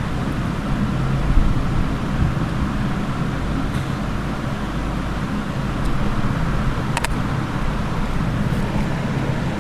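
Steady low rumble with a faint hum, with a single sharp click about seven seconds in.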